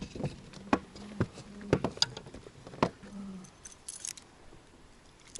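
A series of sharp, irregular clicks and knocks, about six in the first three seconds, then a few fainter ticks.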